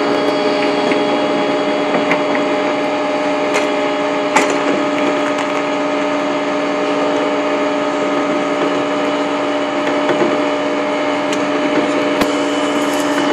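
Flatbed tow truck running steadily, a level hum made of several steady tones, with a few sharp ticks.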